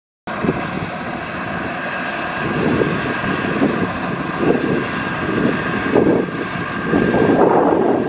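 Kubota DC-105X rice combine harvester running while it cuts the crop: a steady engine and machinery drone with a thin high whine over it, starting abruptly just after the beginning and growing a little louder near the end. Wind buffets the microphone in low gusts throughout.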